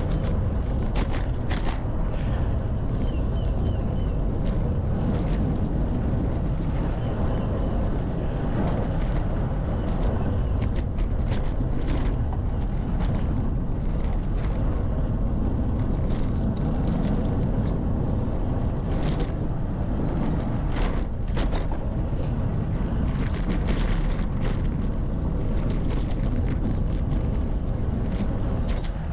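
Wind rushing over a handlebar-mounted GoPro Hero 11's microphone on a moving bicycle, with steady tyre and road noise and scattered short knocks from bumps in the road.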